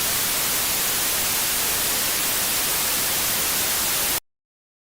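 Loud, even hiss of television static (white noise) that cuts off abruptly about four seconds in, leaving dead silence.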